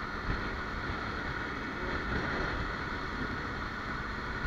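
Kawasaki Ninja 300's parallel-twin engine running steadily at cruising speed, about 80 km/h, mixed with a steady rush of wind noise on the bike-mounted camera's microphone.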